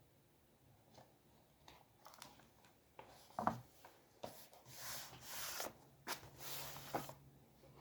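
Drawing materials handled on paper: a few small knocks and clicks, then two short stretches of scraping or rustling on paper.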